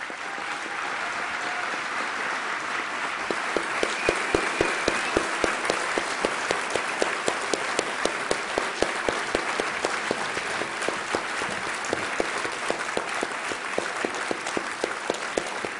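Audience applauding, a dense even clapping with a few sharp, nearby claps standing out.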